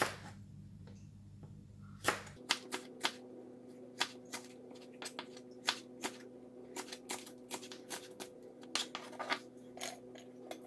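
Kitchen knife chopping red and green chillies on a plastic cutting board: quick, irregular knocks of the blade on the board, several a second, denser after the first couple of seconds.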